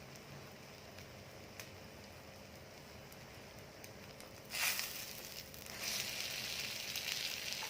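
Egg-dipped bread frying in hot butter in a pan: a faint hiss, then about halfway through a sudden burst of sizzling that settles into steady frying sizzle.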